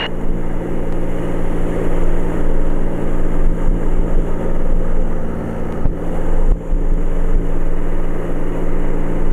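A 1946 North American Navion's piston engine and propeller running steadily, heard inside the cabin, throttled back to about 2300 RPM for the climb after takeoff.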